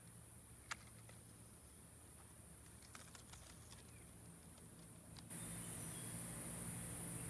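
Faint, steady high-pitched insect drone that grows louder about five seconds in, with a few small scattered clicks.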